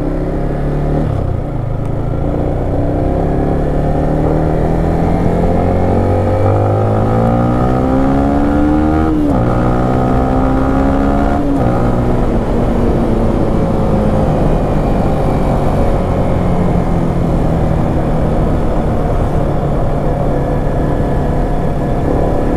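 Yamaha Exciter 155 VVA's single-cylinder engine pulling hard through the gears: the pitch climbs, drops sharply at upshifts about nine and eleven and a half seconds in, then slowly falls as the bike eases off.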